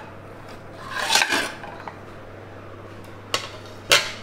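Kitchenware handled on a stone countertop: a short scraping clatter about a second in, then a light click and a sharp knock near the end as a glass chopping board is set down. A low steady hum runs underneath.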